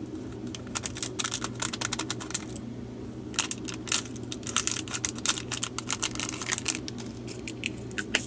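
Tiny resin diamond-painting drills pouring from a bag into a small plastic container: a rapid patter of many small clicks in two runs.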